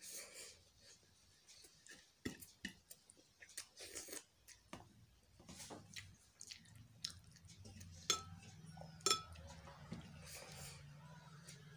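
Eating sounds of a person eating rice and curry by hand: chewing and mouth clicks, with fingers scraping and tapping on a metal plate while mixing the rice. Short sharp clicks recur throughout, and a low steady hum comes in about halfway through.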